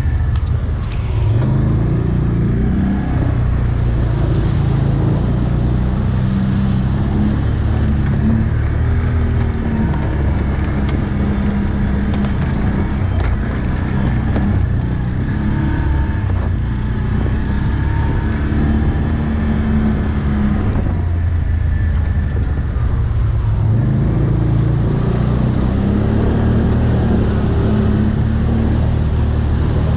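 Quad (ATV) engine running steadily while riding over rough ground. The engine note climbs twice as the throttle opens, about two seconds in and again later on.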